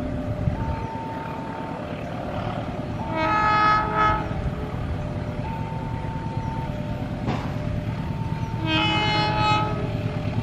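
Diesel locomotive horns sound two blasts of about a second each, one near the middle and one near the end, over the steady low rumble of an idling diesel locomotive. A steady tone comes and goes in between.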